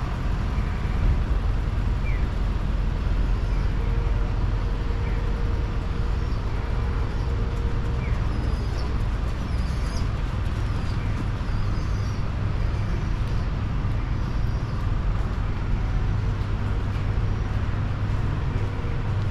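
City street ambience: a steady low rumble of road traffic, with a few faint short high chirps above it.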